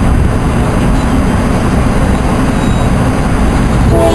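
A loud, steady low rumble, with a locomotive air horn chord sounding right at the end.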